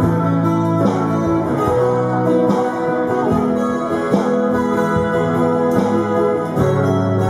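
Two amplified silent guitars with skeleton frame bodies playing an instrumental duet: plucked melody notes over sustained chords.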